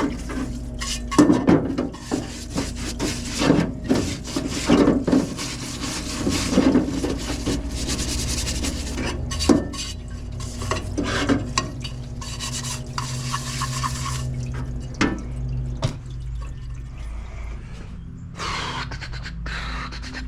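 Metal valve cover being scrubbed in a kerosene parts washer: irregular splashing, dripping and rubbing with the cover knocking against the tub, over a steady low hum. The sounds are busiest in the first half and die down after about twelve seconds.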